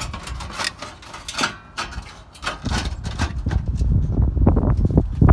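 A run of irregular knocks and clatter, sharp and bright in the first half, then heavier, lower and denser from about halfway through.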